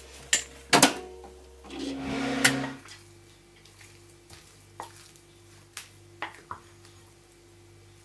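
A few sharp clicks and a brief buzzing hum from the microwave in the first three seconds, then a wooden spoon stirring soft, sticky cooked mochi dough in a ceramic bowl, with faint scattered taps and scrapes.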